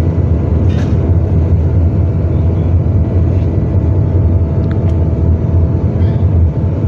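An engine running steadily at constant speed: a loud, even, low rumble with a steady hum.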